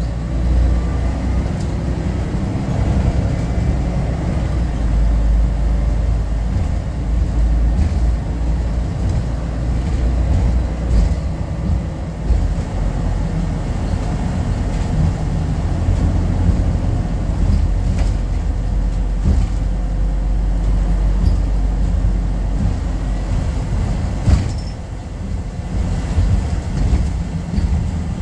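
Cabin sound of a Volvo B12BLEA articulated bus under way: the diesel engine and drivetrain running with a deep steady rumble, a faint rising whine in the first few seconds, and scattered knocks and rattles from the body.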